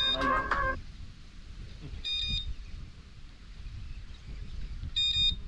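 Short, high electronic beeps repeating about every two and a half seconds, three in all. A run of other steady electronic tones stops under a second in, and a low rumble sits underneath throughout.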